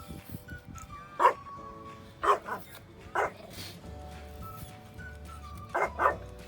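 A dog barking five times in short sharp barks, two of them in quick succession near the end, over background music.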